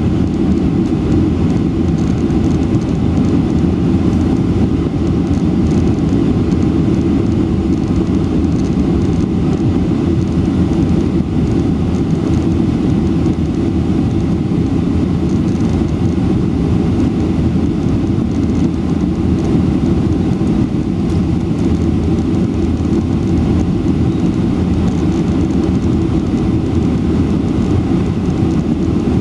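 Steady cabin noise of a Boeing 747-400 in descent, heard from a window seat over the wing: a deep, even rush of engines and airflow past the extended flaps.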